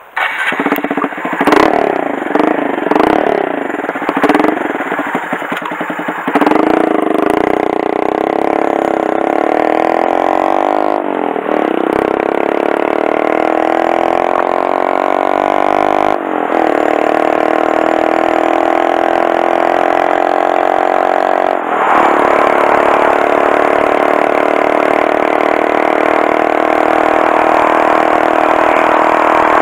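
Honda Monkey 125's single-cylinder engine running and revving unevenly at a standstill for about six seconds, then pulling away and accelerating. It shifts up three times, about 11, 16 and 22 seconds in, each shift a short dip followed by a rising note, and then runs at a steady cruise.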